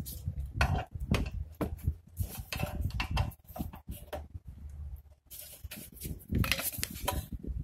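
Irregular clicks and knocks of a rear disc brake caliper being handled and worked loose from its bracket by hand, busiest near the end.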